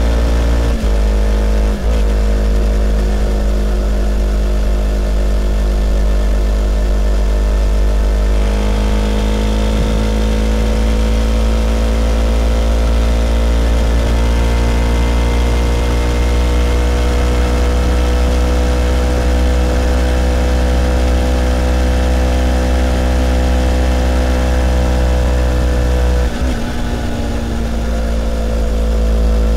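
Kawasaki Ninja 500's carbureted parallel-twin engine running at highway speed, heard mostly as twin-carb intake sound with a subdued exhaust. It has a couple of brief breaks in the first two seconds, revs climb gently partway through, and there is a short dip near the end.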